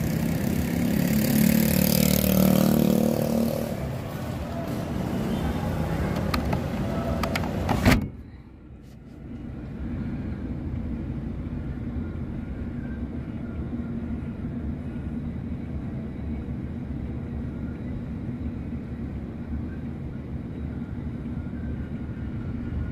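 Street traffic passing close by, heard from inside a parked car, over a low engine hum. About eight seconds in there is a sharp knock, and after it the traffic sounds muffled and quieter, a steady low rumble.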